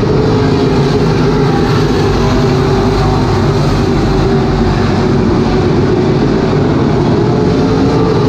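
A pack of dirt-track B-modified race cars with V8 engines running at racing speed around the oval: a loud, steady, continuous engine roar.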